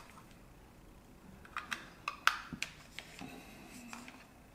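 A few light clicks and taps, small hard objects being handled by hand, starting about a second and a half in.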